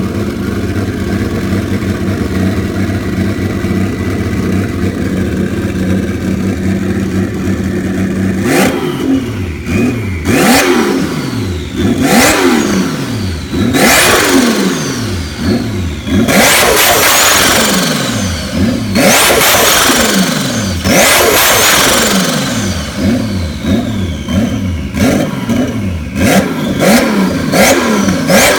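Turbocharged Toyota 2JZ inline-six in a Jeep XJ, running through a short open exhaust elbow: it idles steadily, then from about a third of the way in is blipped hard about eight times, each rev rising and falling back. The throttle snaps shut on each rev and the turbo flutters.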